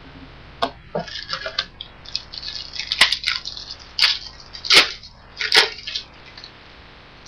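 Crinkling and tearing of a foil trading-card pack wrapper as it is opened: a run of short, sharp crackles, the loudest ones in the second half.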